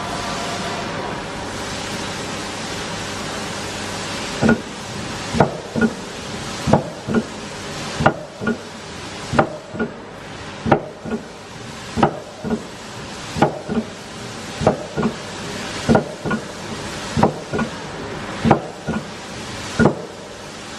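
Miyano BNJ-51SY2 CNC turning center running with a steady hiss. From about four seconds in it makes a regular series of sharp clacks, two at a time about half a second apart, with a pair every second and a bit.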